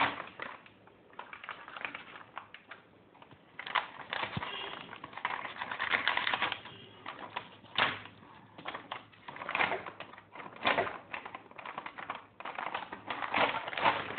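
Plastic flour packet crinkling and rustling in irregular crackly bursts as it is handled and worked open.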